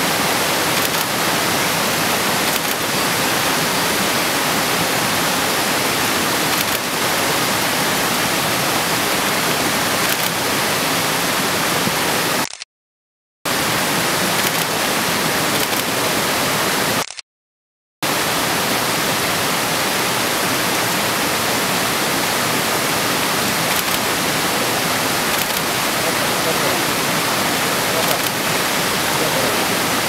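Mountain stream rushing, a loud steady hiss of water. It cuts out to silence twice, briefly, about 13 and 17 seconds in.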